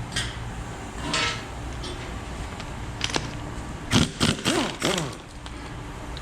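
Metal hand tools knocking and scraping on a bare engine during teardown: a few separate knocks, then a quick cluster of clanks about four seconds in, over a steady low hum.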